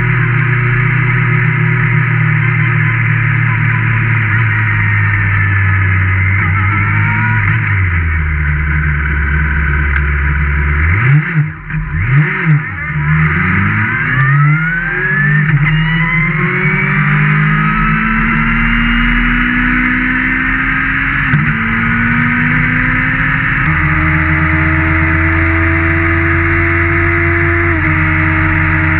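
Open-wheel race car's engine at racing speed with road and wind rush underneath. The revs drop, jump up and down quickly about eleven seconds in as the car slows and changes down, then climb again in long rising pulls through the gears as it accelerates.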